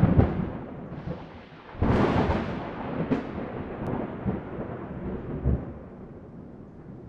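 A series of deep booms, each dying away in a long rumble. The loudest come at the start and about two seconds in, with smaller ones following, and the rumble fades toward the end.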